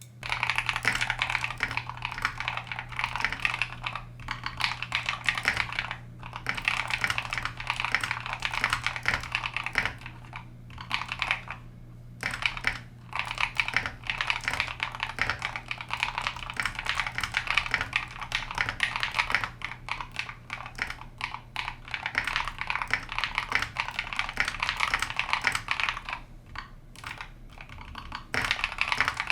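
Fast typing on a custom-built mechanical keyboard: a dense clatter of key clicks in runs of several seconds, with a few short pauses.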